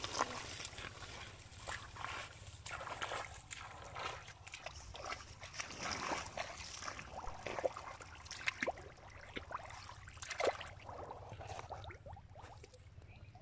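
Bare feet squelching and splashing through shallow water and mud in uneven steps.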